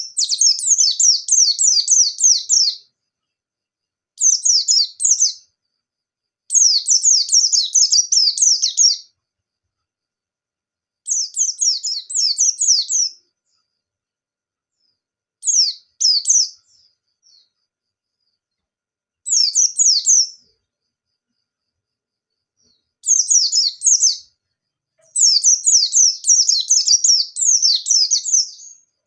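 A pleci (white-eye) singing in fast, high twittering phrases of one to three seconds, about eight of them, with silent gaps between. This is the rapid volley-like 'nembak' song of a bird in full song ('gacor').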